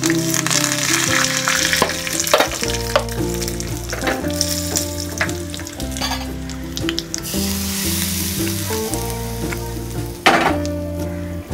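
Green chillies and curry leaves frying in hot oil for a tadka, a steady sizzle with scattered pops and spluttering. About ten seconds in there is one loud sudden burst. Background music plays underneath.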